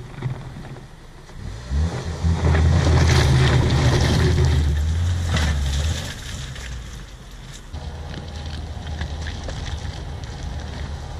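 Ford EcoSport 4WD's engine revving hard as it drives off over loose river gravel, with stones crunching and popping under the tyres. The engine is loudest from about two seconds in and eases off about six seconds in, leaving a lower, steady running sound.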